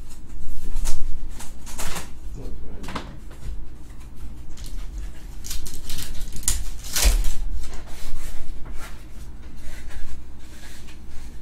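Pokemon booster pack being handled: its foil wrapper crinkled and torn open and the trading cards slid and shuffled between fingers, in a string of short, irregular rustles and crackles, the loudest about seven seconds in.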